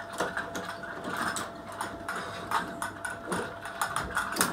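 Steel band of a heavy-duty band clamp being pulled out and handled, with a run of irregular metallic clicks and rattles.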